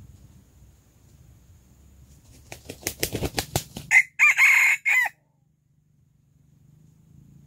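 A rooster beats its wings in a quick run of strokes, then crows once, a short, loud crow of about a second.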